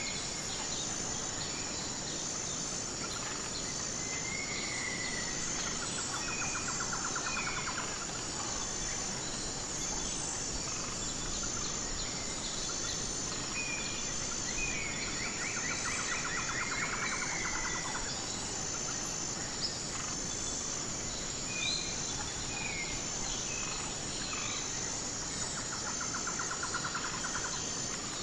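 Insects trilling steadily at a high pitch, with an even pulsing beat running through it. A bird gives short slurred call notes scattered throughout, and rattling trills about three times, over a steady background hiss.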